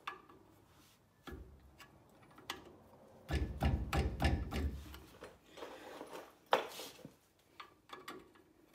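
Irregular sharp metal clicks and knocks, with some scraping, from a pry tool working a stainless steel brake abutment clip off a rusty cast-iron caliper bracket.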